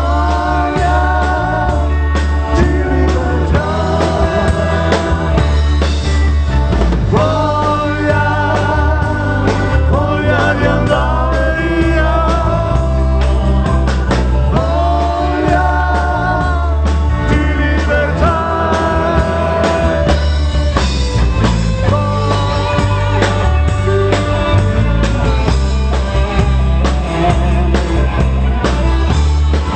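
A band playing a pop-rock song with a lead singer: a sung melody with wavering held notes over a heavy, steady bass, at sound-check volume.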